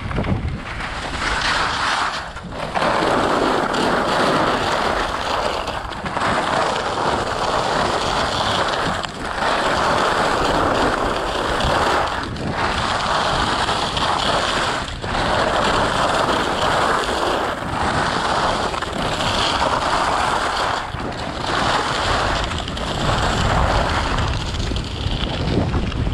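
Skis scraping and hissing over groomed snow on a downhill run, in long swells broken by brief dips about every three seconds as the skis go from turn to turn, with wind buffeting the microphone.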